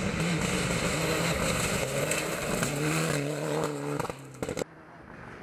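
Rally car engine running hard at high revs on a stage. The sound drops away suddenly about four and a half seconds in.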